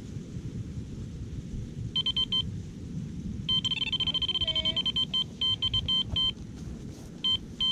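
Electronic carp-fishing bite alarm beeping as a fish takes line and moves the swinger indicator: a few beeps about two seconds in, then a fast unbroken run of beeps, then scattered short bursts. Wind rumbles on the microphone underneath.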